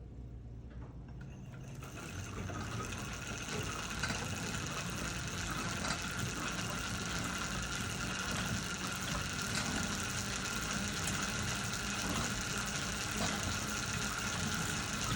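Barnes velocipede foot-powered metal lathe being pedaled: a steady whirring of the turning flywheel, belt and spindle that builds over the first two seconds and then runs evenly, which the owner calls smooth.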